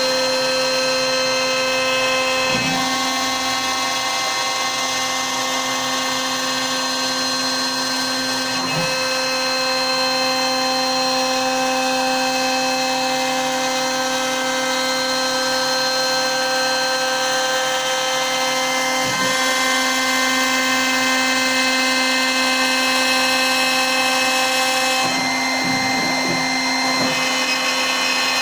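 CNC router spindle running steadily while cutting MDF, a continuous whine made of several steady tones. The tones change abruptly a few times as the machine moves through its cut.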